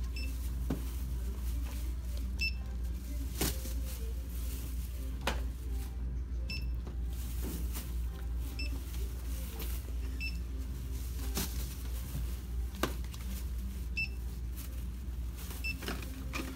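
Checkout barcode scanner beeping as items are rung up: about seven short, high beeps at irregular intervals, with a few sharp knocks from items being handled, over a steady low hum.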